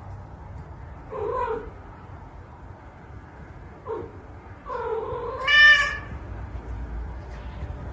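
A domestic cat meowing three times: a short meow about a second in, a brief one near four seconds, then a longer, louder drawn-out call in the second half.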